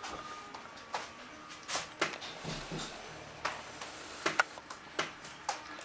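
A series of about eight sharp, irregularly spaced taps or clicks in a small room, some with a short ringing tone.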